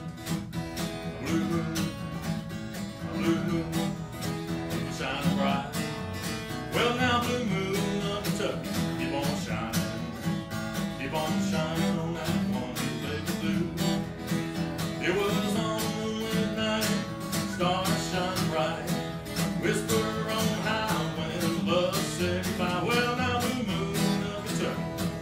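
Guitar played solo in a blues/rockabilly style: a fast, steady run of picked and strummed notes.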